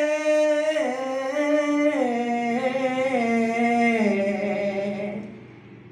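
A man's voice singing an Urdu hamd, a hymn in praise of God, unaccompanied: one long drawn-out phrase held over several notes that step down in pitch, fading out about five seconds in.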